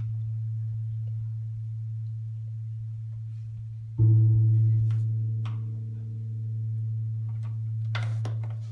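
A low, steady musical drone, a single pure tone. About four seconds in, a louder, richer note joins it and rings on, slowly fading.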